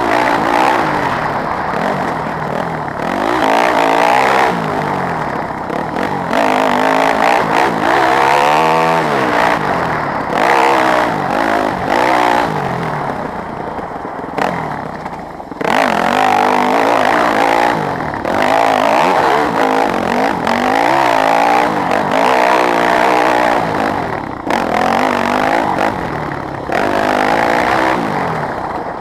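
Yamaha WR250F dirt bike's 250 cc four-stroke single-cylinder engine being ridden, its pitch repeatedly rising and falling every few seconds as the revs climb and drop.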